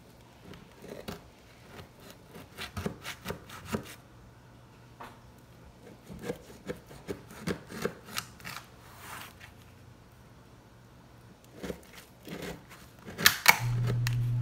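A kitchen knife cutting into a no-bake banana pudding pie, crunching through the vanilla wafers and the cookie-and-graham crust in three bouts of short crackling strokes, the loudest about thirteen seconds in.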